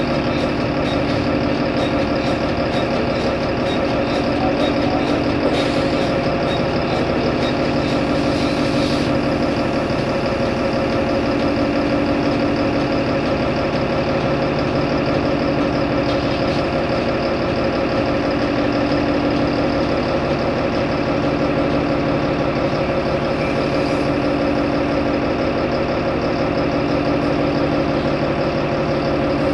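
Engine of a Solaris Urbino 15 city bus, heard from on board, running at a steady, unchanging pitch. A low hum swells and fades every few seconds.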